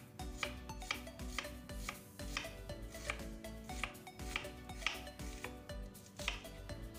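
Chef's knife slicing a red onion on a plastic cutting board, the blade knocking against the board about twice a second.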